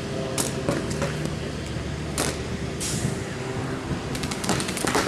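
Paintball markers firing during play: a few separate shots, then a quick string of shots near the end, over a steady low hum.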